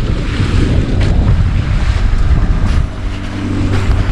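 Strong wind buffeting the microphone on a small boat at sea. A few seconds in the gusts ease and the boat's engine can be heard humming steadily underneath.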